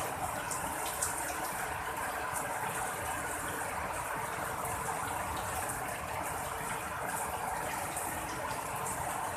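Rain falling steadily, an even hiss with faint patter of drops.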